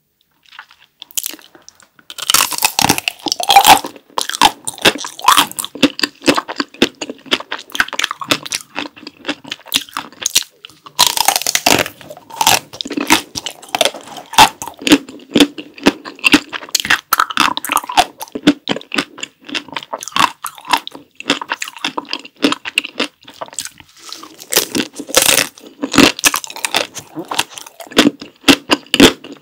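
Close-miked biting and chewing of a Tico milk-chocolate-coated ice cream, the frozen chocolate shell crunching and cracking. Several loud bites, the first about two seconds in, with chewing between them.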